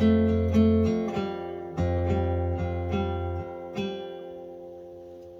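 Acoustic guitar strumming the closing chords, the strums thinning out until the last chord, a little past halfway, is left to ring and fade away.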